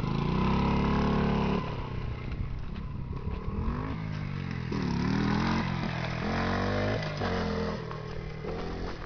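Honda Monkey 50's small four-stroke single-cylinder engine under way, revving with the throttle: held high for about the first second and a half, then dropping and rising again several times.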